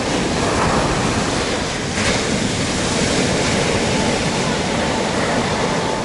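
Waves of a rough sea breaking and washing up a sandy beach, a steady noise of surf.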